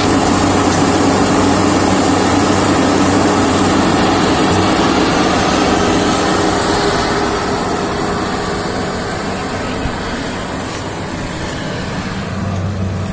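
Rice combine harvester's engine running steadily, growing somewhat quieter after about seven seconds.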